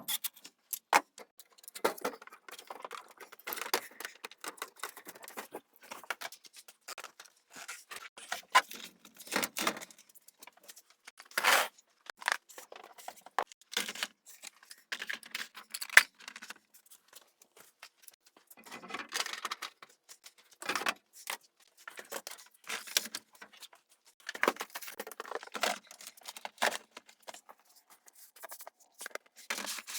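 Irregular clicks, clinks and short rustles of hand work with tools and small metal parts, with a few louder knocks scattered through.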